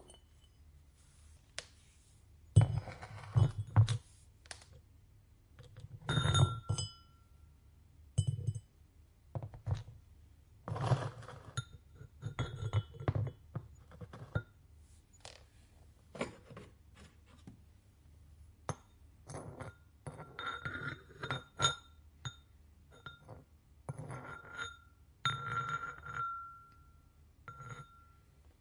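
Irregular clinks and dull knocks of ceramic pieces and tools being handled and set down in a pottery studio. Some clinks ring briefly, the longest a little before the end.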